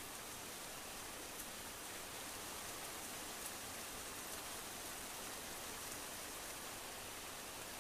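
Steady rain falling, an even hiss with a couple of faint drop ticks.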